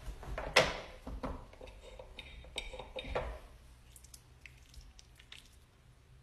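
A run of sharp clicks and knocks from objects being handled, the loudest about half a second in, thinning out after about three seconds into a few faint clicks and light rubbing.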